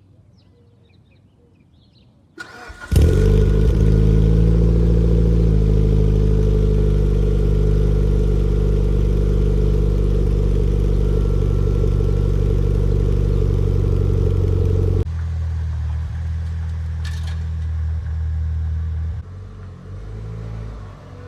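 Mitsubishi Lancer Evolution VIII's turbocharged four-cylinder engine cranking briefly and catching about three seconds in, then running at a steady fast idle that settles a little lower a few seconds later. About fifteen seconds in the engine sound becomes noticeably quieter and duller, and drops again near the end.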